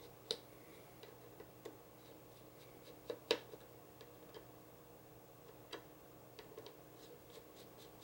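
Faint, scattered small clicks and ticks of a small Torx screwdriver backing out the handle screws of a Cold Steel Recon 1 folding knife, metal tool on screw heads and handle. The loudest pair of clicks comes about three seconds in, with a few lighter ticks later.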